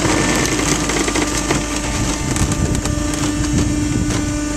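Mill-size cardboard baler ejecting a finished bale: the hydraulic power pack runs with a steady hum while the compressed, strapped bale is pushed out, creaking and cracking irregularly as it moves.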